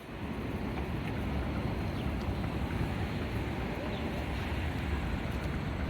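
Steady outdoor rumble of passing traffic, with low gusts of wind on the microphone.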